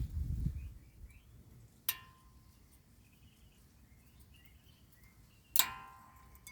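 Two metal clinks, a light one about two seconds in and a louder one with a brief ringing tail near the end, as steel tools or brake parts are handled. Faint bird chirps sound throughout.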